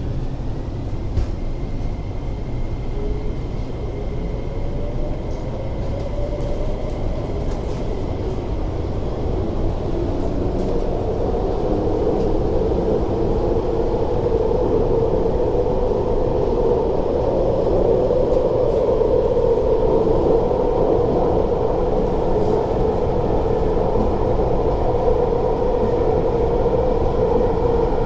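MTR SP1900 (IKK-train) electric multiple unit heard from inside the car, pulling away and gaining speed: the traction motor whine rises in pitch over the first several seconds. The train then runs steadily at speed through the tunnel, with a louder hum and rumble.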